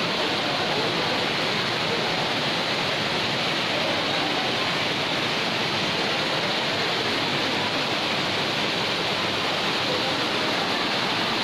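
A torrent of rainwater runoff rushing down stone steps and a paved hillside path: a steady, unbroken rush of water.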